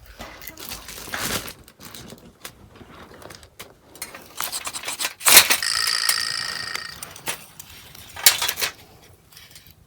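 Small metal objects being handled, with scraping and clicking. About five seconds in comes one sharp metallic clang that rings on for over a second, and another clatter follows near the end.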